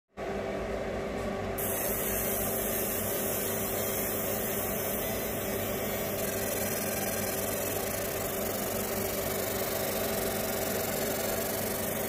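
Laser engraving machine running while it engraves a brass Zippo lighter: a steady hiss with a low, even hum under it.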